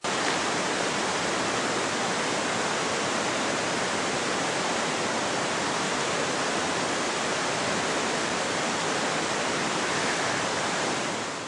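Steady, loud rush of white water from a snowmelt-fed fall or cascade, starting suddenly and fading away near the end.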